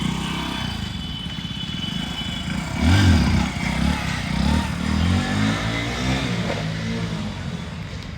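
Motorcycle engine running, revved about three seconds in, its pitch rising and falling several times before settling.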